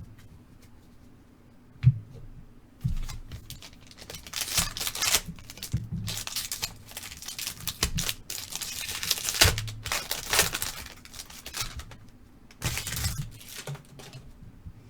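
A trading-card pack wrapper being torn open and crinkled, in repeated rustling bursts, with a couple of sharp clicks of cards being handled a few seconds in.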